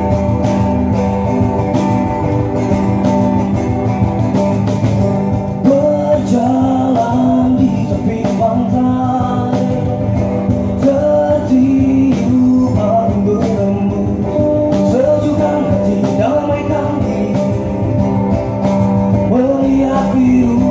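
Live band music through a stage PA: an amplified acoustic guitar strumming over a steady bass line, with a melody line coming in about six seconds in.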